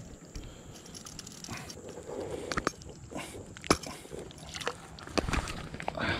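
Handling sounds of a spinnerbait being worked free of a largemouth bass's mouth: a string of sharp clicks and knocks with light rustling, the loudest click a little past the middle.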